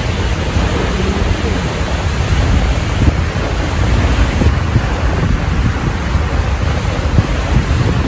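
Steady roar of a waterfall, with wind buffeting the microphone.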